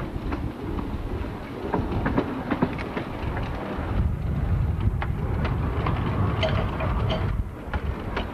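Small 2 ft gauge Bagnall steam tank locomotive 'Sea Lion' running slowly past close by, with a low rumble and irregular clicks and clanks from its wheels and motion on the track.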